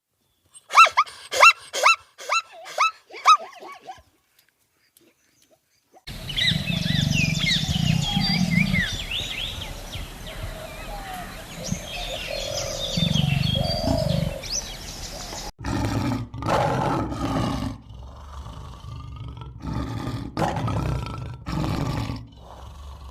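Big cat roaring: deep, rumbling roars with birds chirping behind, then a run of loud grunting roars. It opens with a quick series of high yelping calls from another animal.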